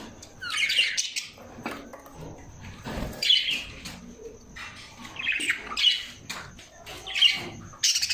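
Parrots calling in short, harsh bursts, about half a dozen calls spaced a second or two apart, the last ones near the end coming closer together.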